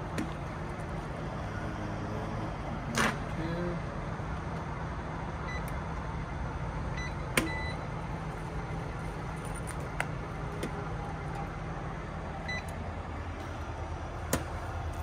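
Steady low hum of an idling truck engine, with a few sharp clicks and faint short beeps as keys are pressed on a fuel-island card terminal.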